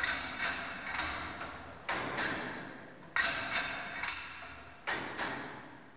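Metal weights of an exercise machine clanking: four main metallic strikes about a second and a half apart, each ringing out and fading over a second, with lighter ticks in between.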